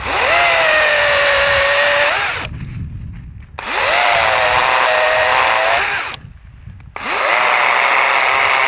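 DeWalt battery-powered chainsaw cutting through bush honeysuckle stems in three bursts, its electric motor spinning up with a rising whine at the start of each and then holding a steady whine while it cuts.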